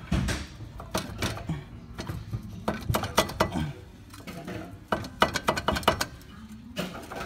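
Irregular metal clanks and knocks as a truck's front wheel hub assembly is worked by hand at the steering knuckle, its four mounting bolts out.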